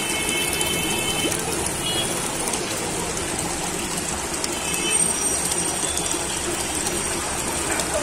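Aquarium water splashing and bubbling steadily from tank filters and air pumps.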